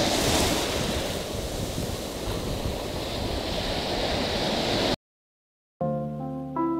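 Sea surf washing in over a sandy beach, a hiss of foam and water that swells at first, settles, then cuts off suddenly about five seconds in. After a short silence, plucked-string music begins near the end.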